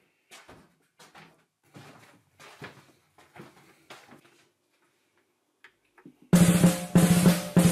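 Soft footsteps, about one every two-thirds of a second, as someone walks down a wooden staircase. A pause follows, with a couple of small clicks of a stereo's button. About six seconds in, loud music with a heavy drum beat starts from the stereo.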